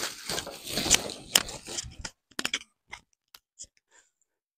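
Large plastic bale sack crinkling and rustling as clothes are pulled out of it, for about two seconds, then only a few faint scattered rustles.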